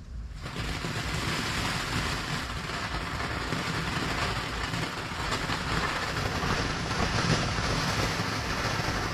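Garden firework fountain catching about half a second in and then burning with a steady, even hiss.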